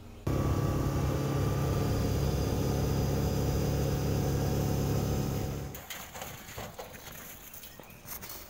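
Quad bike (ATV) engine running steadily. It cuts in suddenly just after the start and drops away after about five and a half seconds, leaving a few faint knocks.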